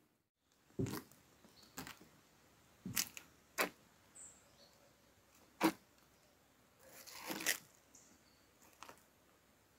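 Rubber-soled high-top sneakers knocking and scuffing on the wooden planks of a leaf-strewn footbridge: a handful of separate knocks and short scrapes, with a longer scrape about seven seconds in.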